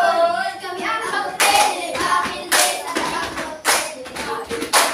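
A group of children singing or chanting together, with claps about once a second, four in all.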